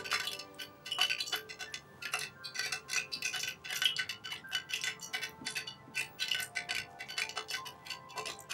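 Light clinking and tapping of a metal ladle and utensils against a frying pan and a glass mixing bowl, many quick irregular clicks, over faint chiming background music.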